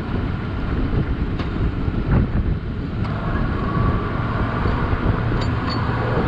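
Strong wind buffeting the camera microphone in a steady low rumble, with a vehicle engine running underneath and a few faint ticks.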